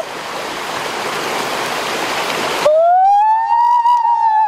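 Rushing stream water, then an abrupt change to a boy's long drawn-out yell that rises and then falls in pitch.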